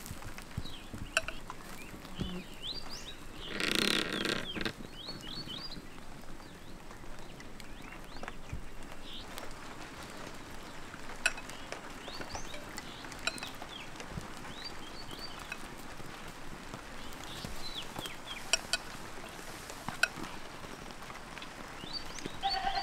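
Small birds chirping repeatedly around an open wood fire, with a few sharp crackling pops from the embers. About four seconds in, a louder call lasts about a second.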